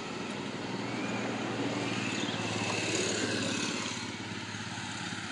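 A motor engine running steadily, a low even hum under a rougher noise, which swells slightly toward the middle and eases off near the end.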